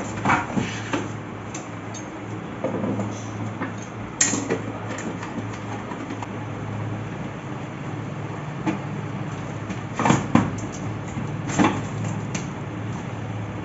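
Scattered plastic clicks and knocks as the water purifier's plastic casing, front cover and filter parts are handled and fitted, with a cluster of knocks near the start and another about ten seconds in, over a steady low hum.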